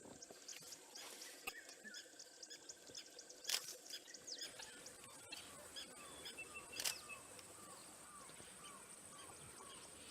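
Birds calling faintly outdoors: a run of short chirps that slide down in pitch, repeated about twice a second through the second half. Two sharp clicks stand out, one about a third of the way in and one about two-thirds in.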